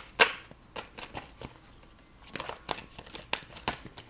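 A deck of tarot cards being shuffled by hand: short papery flicks and rustles of card sliding on card. The loudest comes just after the start, and a cluster follows about halfway through.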